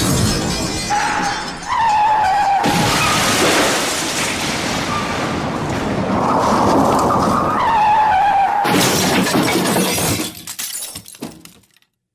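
Car-crash sound effect: tyres squeal in wavering skids, then a crash with glass shattering. Scattered bits of debris and glass tinkle and fade out over the last couple of seconds.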